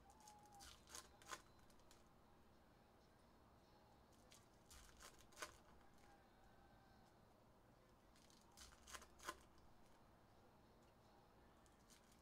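Faint sound of foil Topps Cosmic Chrome card packs being torn open, one after another: three short bursts of sharp ripping and crinkling, about four seconds apart.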